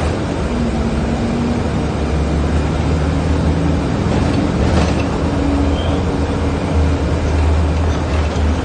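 Steady low rumble of a moving road vehicle, with a faint hum and an occasional light knock.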